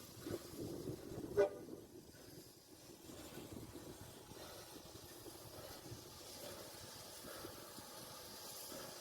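A locomotive whistle gives one brief, sharp toot about a second and a half in, over a low, steady background of railway noise.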